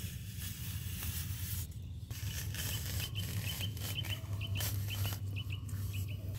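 Curved metal blade scraping and chopping into wet mud and clay, with a steady low rumble underneath. From about halfway through, a small bird chirps in a quick run of short high chirps, about three a second.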